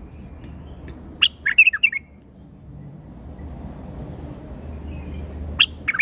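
Caged male white-eared bulbul singing: a quick burst of short chirpy notes about a second in, then two more short calls near the end.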